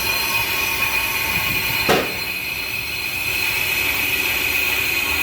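Haosail brake lathe skimming a brake drum under automatic feed, the cutting tool giving a steady high-pitched metallic squeal. There is one sharp knock about two seconds in.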